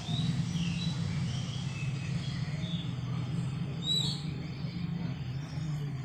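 Pleci (white-eyes) giving short, high chirps, several in the first four seconds and the loudest about four seconds in, over a steady low hum.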